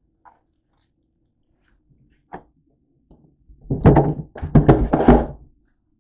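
Household items being handled: a couple of light clicks, then from about three and a half seconds a two-second cluster of thunks and knocks mixed with rustling as things are moved and set down.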